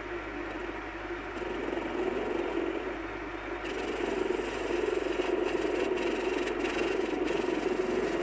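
Myford ML7R lathe running while its tool takes a light facing cut across a gunmetal flywheel boss: a steady motor-and-spindle hum with a scraping cut over it. The cutting noise grows louder and brighter about three and a half seconds in.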